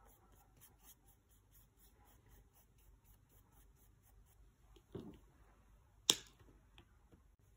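Faint rubbing of a fingertip spreading paint on sketchbook paper, with a soft thump about five seconds in and a short sharp click about a second later.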